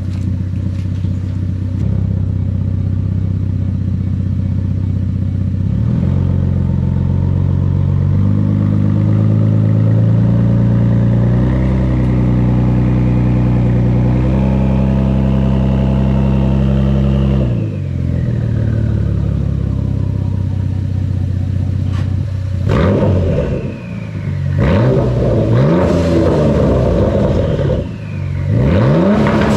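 The 2014 Ford Taurus SHO's twin-turbo 3.5 L EcoBoost V6 is running on its current exhaust, mufflers cut off. It idles, is brought up to a held higher rev that drops back about two-thirds of the way in, and then takes a few quick throttle blips near the end.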